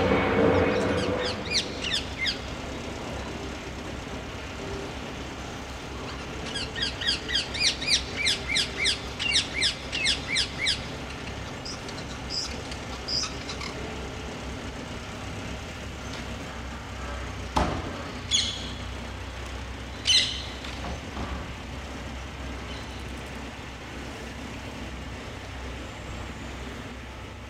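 Ring-necked parakeet calling: a fast run of sharp, harsh calls, roughly three or four a second for about four seconds, then a few single calls. Under it runs a steady low hum of city traffic, and a louder vehicle sound fades out at the very start.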